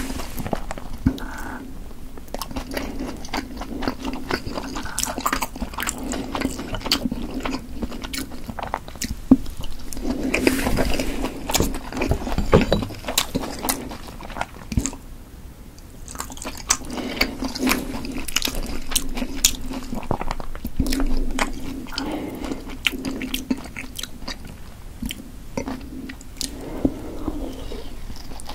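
Close-miked chewing and biting of soft, chewy steamed potato dumplings: wet mouth sounds with many small clicks, louder for a stretch about ten to thirteen seconds in.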